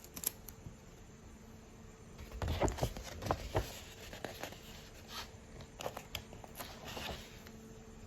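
Hands handling a paper sticker card and its packaging: soft crinkles, taps and small clicks, busiest about two to four seconds in, with scattered clicks after.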